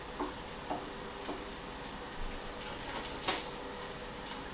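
An egg frying in a pan: a steady sizzle with a few short pops scattered through it.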